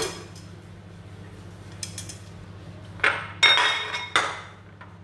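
Metal ladle scraping and clinking in a wok of fried rice as it is scooped out onto a plate: a few faint clinks about two seconds in, then three louder scrapes near the end.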